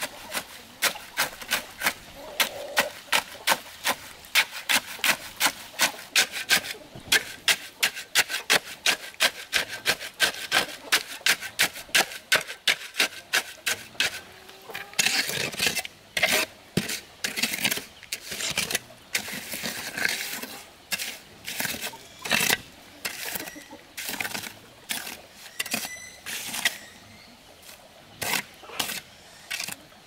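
Hand tool working a wooden column. Quick, even strokes come about three or four a second, then turn slower and more uneven about halfway through.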